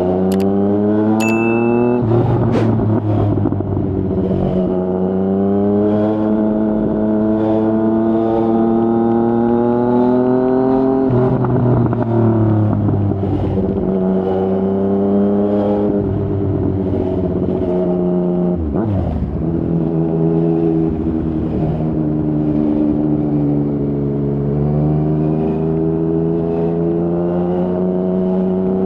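Yamaha MT-09 inline-three engine through a Yoshimura R55 slip-on exhaust, ridden under acceleration: the note climbs steadily and drops sharply at each gear change, holds steady while cruising, then climbs again near the end.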